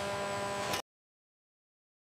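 A steady droning hum of several held tones over a faint hiss, cutting off abruptly just under a second in; after that, dead silence.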